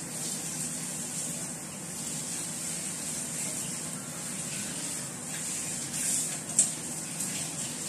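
Soy sauce pouring in a thin stream from a plastic bottle into a stainless steel bowl, over a steady hiss, with one sharp click about six and a half seconds in.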